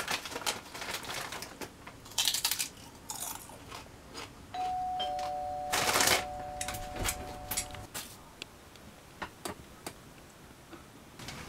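A two-note ding-dong doorbell chime about four and a half seconds in, the two tones ringing on together for about three seconds. Around it, a chip bag crinkles and rustles in a loud burst as it is handled.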